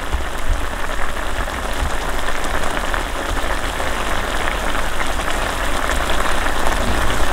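Chicken and potato stew bubbling in a frying pan at a rapid simmer: a steady crackle of many small bursting bubbles over a low rumble.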